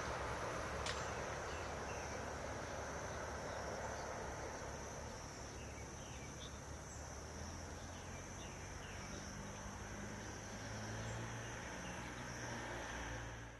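Outdoor ambience: a steady high-pitched insect trill over a low rumble of distant traffic, with a single click about a second in.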